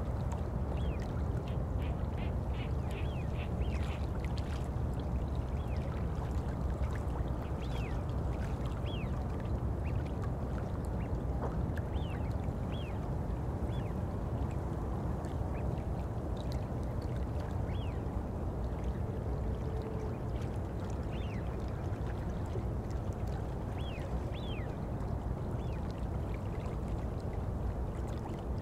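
Underwater ambience: a steady low rush of moving water, dotted with short, pitched bubble blips, several in a quick run near the start.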